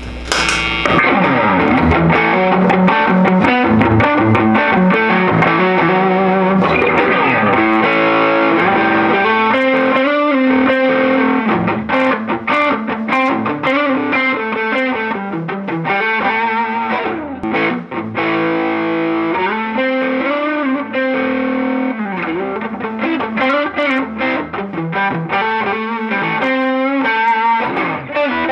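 2019 Gibson Les Paul Classic electric guitar with Zebra humbucking pickups played with distortion through a combo amplifier: a continuous lead-and-riff passage with bent and vibratoed notes, coming in loudly about a second in.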